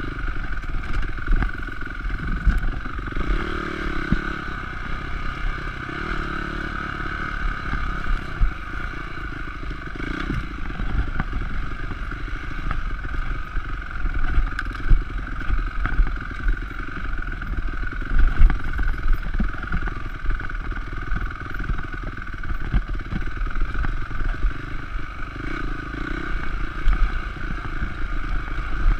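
Honda CRF250X dirt bike's single-cylinder four-stroke engine running steadily while riding, with frequent knocks and rattles from the bike over rough trail, heard through a bike-mounted camera.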